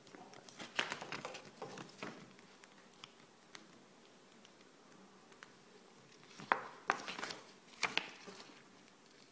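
Packaging being handled: two short spells of crinkling and rustling with small clicks, the first just after the start and the second a little past the middle.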